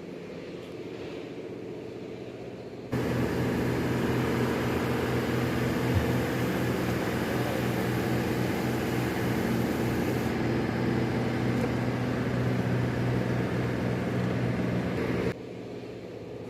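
A steady machine hum with several held tones. It jumps louder abruptly about three seconds in and drops back just as abruptly near the end.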